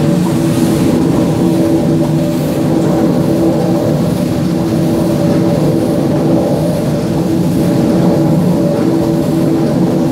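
The River Don Engine, a three-cylinder Davy Brothers reversing steam engine, running under steam: a loud, steady mechanical running sound.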